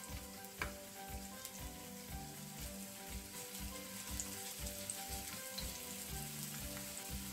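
Sliced red onion sizzling in hot oil in a nonstick frying pan, sautéing toward caramelised, as a spatula stirs and pushes it around. Soft background music with a steady beat plays underneath.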